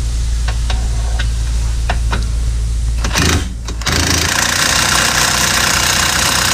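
Impact wrench tightening the Torx E16 axle bolt. A short burst comes about three seconds in, then a long steady run of fast hammering to the end. Before it there is a steady low hum with a few light clicks of the tool being handled.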